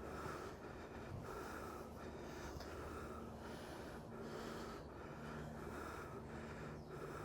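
A hiker's rhythmic breathing close to the microphone while climbing a steep uphill path, each breath repeating about every three quarters of a second.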